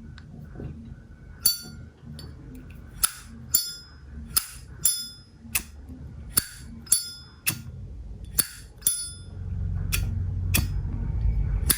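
Vintage Zippo windproof lighter, a 1991 anniversary piece, its lid flicked open and snapped shut over and over: about fifteen crisp metallic clicks, each with a short bright ring.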